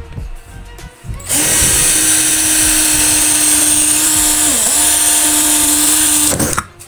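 Cordless drill running at speed, drilling a hole through an aluminium bar. It starts about a second in, holds a steady whine with a brief dip in pitch about two-thirds of the way through, and spins down near the end.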